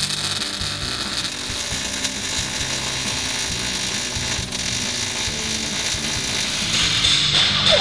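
MIG welding arc crackling steadily as a bead is laid on sheet-steel body panel.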